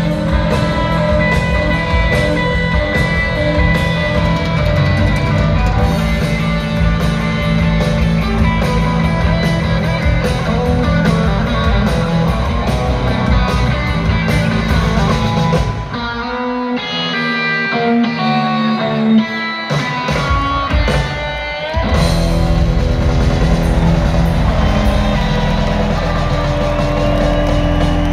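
Live blues-rock band playing loud electric guitar, bass and drums. About sixteen seconds in, the bass and drums drop out for a few seconds of bent electric-guitar notes played alone, then the full band crashes back in.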